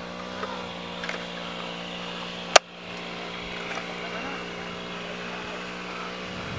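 Steady machine hum with an even, unchanging pitch, broken by one sharp click about two and a half seconds in.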